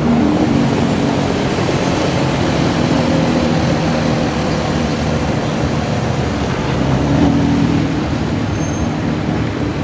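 Porsche Carrera GT's V10 engine running at low revs as the car moves off slowly, the revs rising and falling a little, with a brief swell about seven seconds in.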